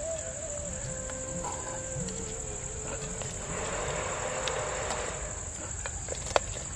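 Steady high-pitched insect trilling, like crickets, throughout. About midway there is a soft swishing as a ladle is moved through the syrup with the fried banana pieces, and a sharp click near the end.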